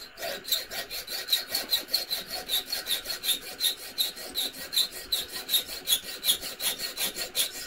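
Junior hacksaw sawing through a metal part in quick, even back-and-forth strokes, about five rasps a second.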